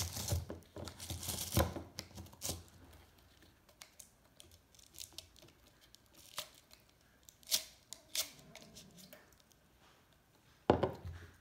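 Crocheted cotton bracelet being rolled down a tapered plastic tumbler by hand: crinkling and rubbing of the plastic, with several sharp taps and knocks in the first couple of seconds, a few scattered ticks later and one louder knock near the end.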